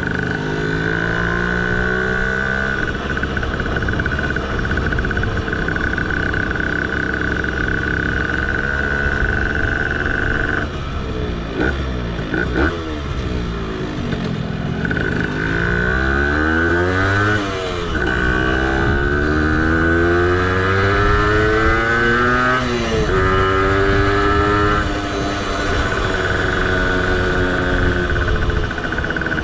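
Tuned 70cc two-stroke engine of a Zündapp moped under way, its pitch climbing and falling back again and again as it revs up through the gears, with short breaks where it drops. A steady high whine rides over it and cuts out at those breaks.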